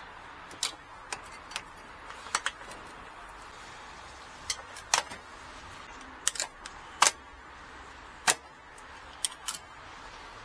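Sharp, irregular clicks and taps of small hand tools working on an amplifier board, a dozen or so spaced unevenly, over a low steady hiss, as a pair of output transistors is being removed.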